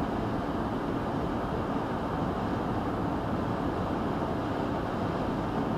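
Steady road and wind noise heard from inside a vehicle cruising at about 69 mph on the highway, with no rises or breaks.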